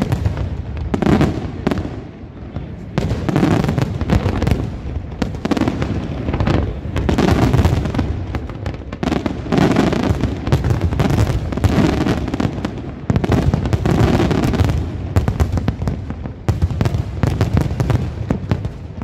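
A dense barrage of aerial firework shells bursting, many booms and cracks overlapping with no real pause, swelling and easing every few seconds.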